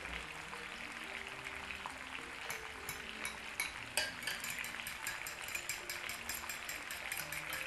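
Fork beating raw eggs in a glass bowl, its metal tines clicking rapidly against the glass, several taps a second, starting about two and a half seconds in.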